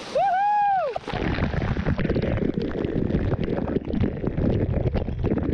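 A short, high, rising-and-falling squeal of a voice. From about a second in, waterfall water pours and splashes straight onto the camera's microphone, a dense crackling rush with a heavy low rumble.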